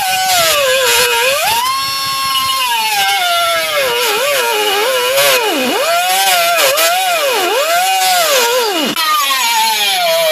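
Air-powered cutoff wheel cutting through steel spot welds, a high whine that keeps dipping sharply in pitch and recovering as the wheel bites into the metal, about once a second in the second half.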